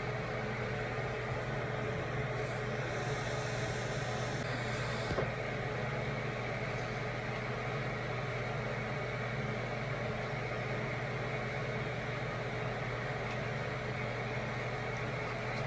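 Steady hum of a fan running in a small room, with a single short click about five seconds in.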